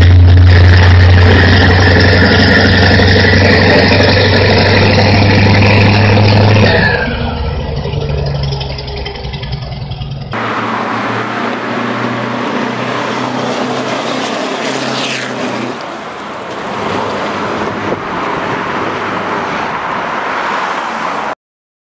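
Scania R truck with a straight-pipe exhaust, its engine running loud and steady with a deep drone for about seven seconds, then quieter. About ten seconds in a cut brings a different take of the truck's engine and road noise, which cuts off shortly before the end.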